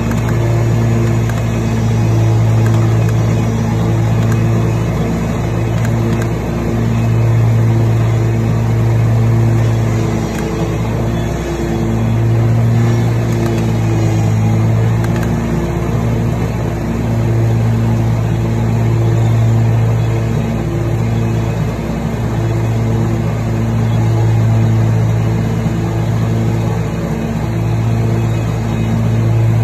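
Riding lawn mower engine running steadily while mowing grass: a low, continuous drone that swells and eases slightly every few seconds.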